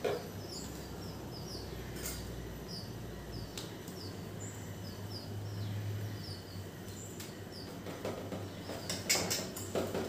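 Small bird chirping: a steady series of short, high chirps, one or two a second, over a faint low hum, with brief rustling near the end.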